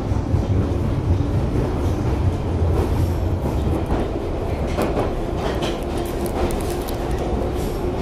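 London Underground train running, heard from inside the carriage: a steady low rumble with sharp clicks and rattles from the wheels and carriage, coming more often in the second half. A faint steady whine comes in near the end.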